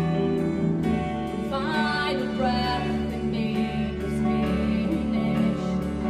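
Live worship music: a violin and sustained backing instruments under a steady light ticking beat, with women's voices coming in singing a slow melody about a second and a half in.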